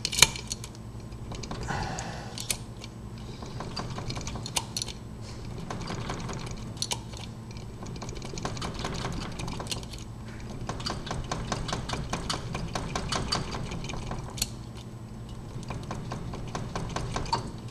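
Key blank rattling and clicking against the wafers of a five-wafer Slaymaker padlock as it is wiggled and bumped up and down in the keyway, a run of small metallic clicks. This is the impressioning step: the wafers binding on the blank to leave marks showing where to file.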